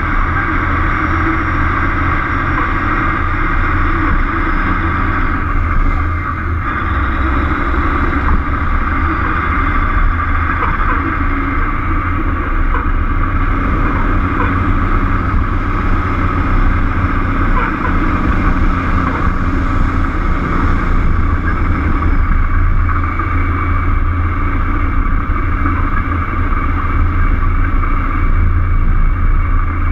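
Peterbilt truck's diesel engine running steadily at cruising speed, a continuous low rumble mixed with road and wind noise, as picked up by a camera mounted on the outside of the truck.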